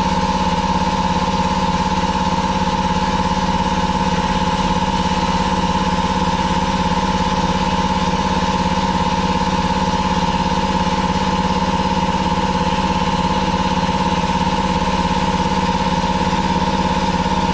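DIY vapour blasting cabinet running, its blast gun spraying air and water slurry onto a cast engine side cover. It makes a loud, steady hiss over an unchanging machine drone.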